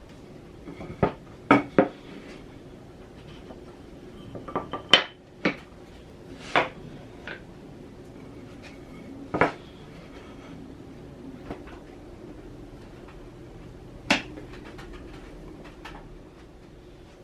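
A series of sharp knocks and clinks of hard objects being handled and set down on a workbench, about a dozen spread irregularly, the loudest around five seconds in; no router is running.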